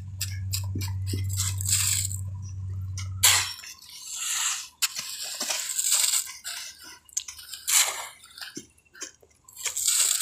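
Shovels and hoes scraping and pushing loose grey material across the ground in repeated short, gritty strokes. A steady low hum runs underneath and cuts off about three and a half seconds in.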